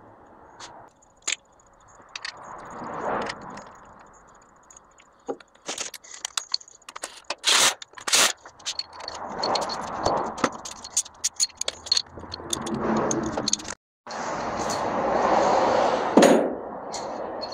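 Metal hand tools and bolts clinking, clicking and scraping while motor mounts are fitted to a V8 engine, with a few swells of rustling noise in between.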